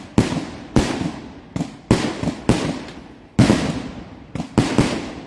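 Thunder Willow consumer aerial fireworks bursting overhead: a rapid irregular series of about nine loud booms, each echoing away before the next.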